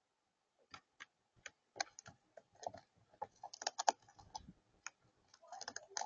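A crow's claws tapping and scraping on the hard plastic feeder setup: a run of irregular clicks and taps that thickens in the middle, with a last cluster as the bird lands on the rim of the food bowl.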